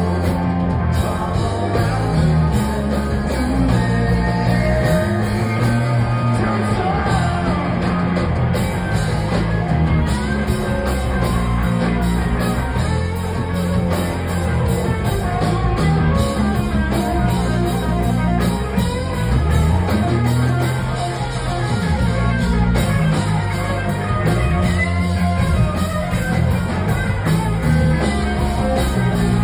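Live rock band playing loud and steady, electric guitar over bass and drum kit, heard through the club's PA from within the crowd.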